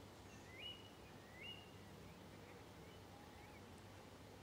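Near silence of a calm riverside evening, with faint bird calls: two whistled calls that rise and then hold level in the first couple of seconds, then a few softer chirps.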